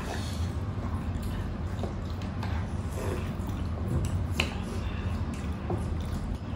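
Close-miked eating sounds: slurping broth from a bowl and wet chewing and smacking, with scattered small clicks and one sharper click about four and a half seconds in, over a steady low hum.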